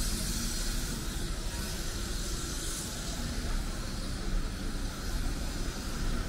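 Steady outdoor rumble with a hiss over it and no distinct events.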